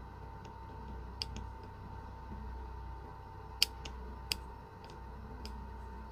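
Small sharp metallic clicks and taps as the parts of a Daiwa Triforce S 2000 spinning reel are handled during disassembly, about five in all, the loudest about three and a half seconds in, over a faint steady hum.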